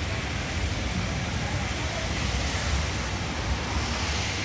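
Steady rushing rumble and hiss of an SMRT East West Line train running slowly along the elevated viaduct through the station. The hiss brightens a little near the end.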